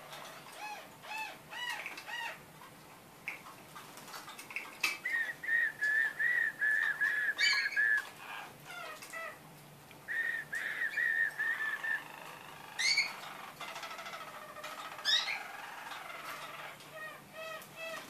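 Roller canaries singing: runs of quick, evenly repeated notes, the loudest about five to eight seconds in and again about ten to twelve seconds in, broken by short upward-sliding whistles.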